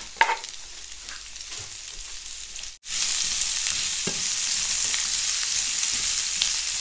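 Sliced onion rings sizzling in a frying pan as they are stirred with a wooden spatula. There are a couple of sharp knocks at the start as the wooden board is tapped against the pan. After a brief break about three seconds in, the sizzle is louder and steady.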